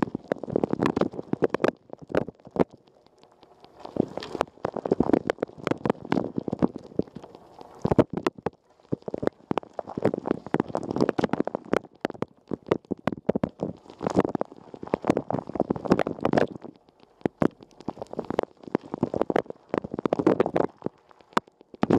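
Water spraying and splashing inside a Rosenlew dishwasher during a wash, with sharp droplet hits and a wet, gurgling sound. It comes in loud surges about every four to five seconds, dropping away between them.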